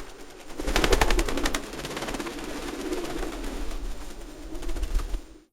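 Pigeons' wings flapping in a quick clatter of claps about a second in, then fainter.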